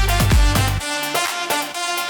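Electronic dance music with a steady kick drum and deep bass; about 0.8 s in, the kick and bass drop out, leaving higher synth notes in a short break.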